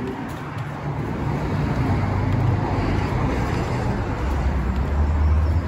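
Street traffic: a motor vehicle passing, its noise building over the first couple of seconds, with a low engine hum strongest near the end.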